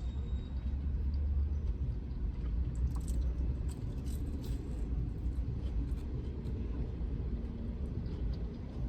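Low, steady rumble of an idling vehicle engine heard from inside the cab, with a few faint light clicks.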